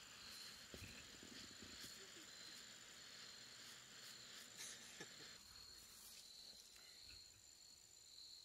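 Near silence: faint outdoor ambience with crickets trilling in a steady, evenly pulsing high chirp and a few soft clicks.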